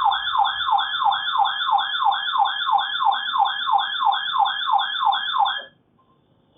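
Weather radio receiver's electronic alert siren, signalling an incoming alert. A warbling tone sweeps down in pitch about four times a second, then cuts off suddenly about a second before the end.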